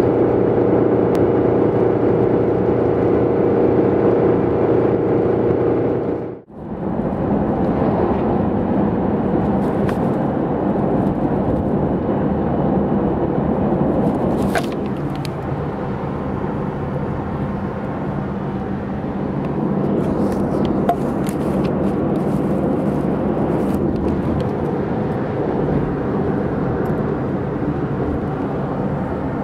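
For about six seconds, a steady drone with a strong hum, the sound of the owner's previous car, cuts off abruptly. Then comes the steady engine and road noise inside a 2005 Honda Civic Hybrid cruising uphill at highway speed.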